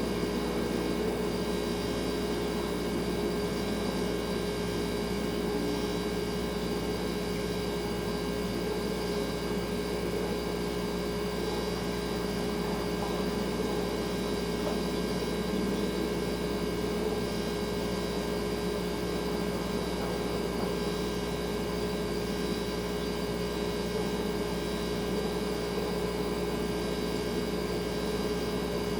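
Refrigerator running with a steady hum: one strong mid-pitched tone and fainter tones above it, over an even low noise, without a break.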